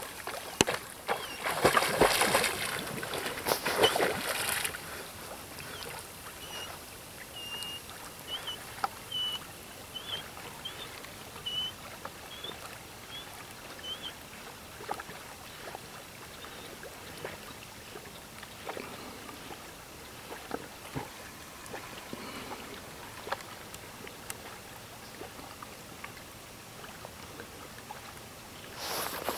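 Labrador retriever swimming out to a downed duck: soft paddling and lapping water, louder in the first few seconds. A run of short, high rising chirps comes in around the middle.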